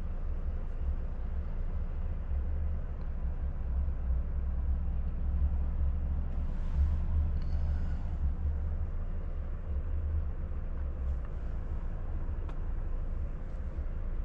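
Volvo FH truck's diesel engine idling while the truck stands still, heard inside the cab: a steady low rumble, with a brief hiss about seven seconds in.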